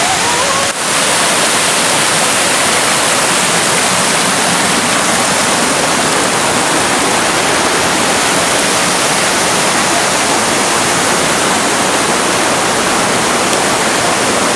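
Steady, loud rushing of a waterfall, an even unbroken roar of falling water, dipping briefly about a second in.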